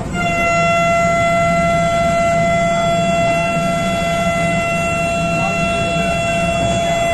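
Vande Bharat Express electric train horn sounding one long steady blast at a single pitch, heard from inside the driving cab. Beneath it runs the low, steady noise of the train on the move.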